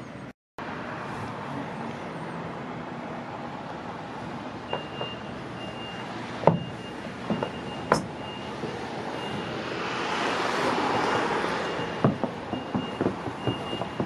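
A vehicle passes on the street, swelling to its loudest about ten seconds in and then fading, while a high, repeating reversing-alarm beep sounds from about five seconds in. Scattered sharp knocks come through, mostly near the end.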